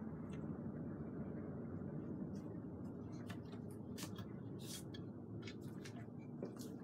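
A steady low hum with light clicks and taps scattered through it, a few to a second or so apart.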